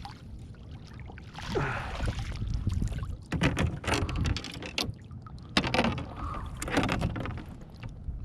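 Kayak on the water: irregular splashing and sloshing, with sharp knocks and a steady low rumble underneath.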